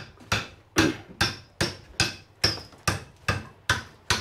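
Steady hammer blows on metal fittings, about two and a half strikes a second, each with a short ring.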